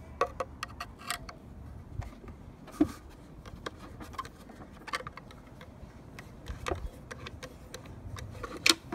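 Scattered faint clicks and scrapes of a flat-bladed screwdriver turning the stock bolt inside a Remington 870's polymer stock, loosening it, with a few sharper ticks spread a second or two apart.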